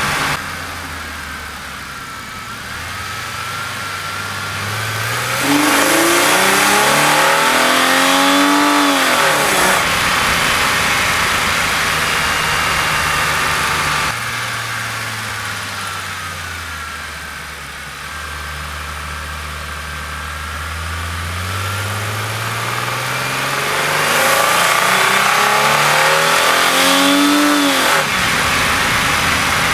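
A 2002 Holden Commodore VX S II's V6, fitted with extractors and a Redback exhaust and heard through a microphone in the engine bay, accelerating hard twice. Each time the revs climb steadily for several seconds and the engine gets louder, then the revs drop away sharply. Between the two, the engine runs low and steady.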